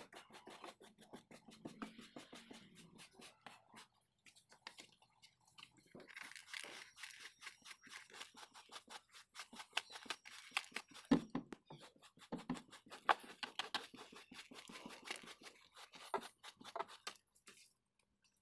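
Stiff-bristled hand brush scrubbing a car's floor carpet in quick back-and-forth strokes, loosening dust and grit, with a few louder knocks past the middle. It stops shortly before the end.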